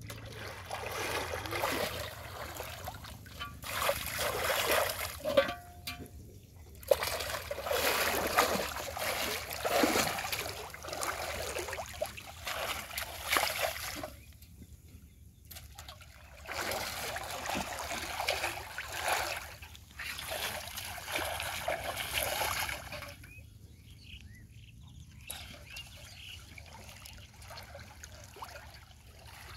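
Water splashing, sloshing and trickling as someone wades through shallow, weedy water and pushes a metal pot through it. It comes and goes, with a couple of brief lulls.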